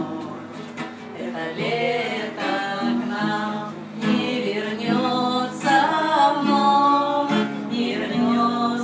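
An acoustic guitar played along with a voice singing a song.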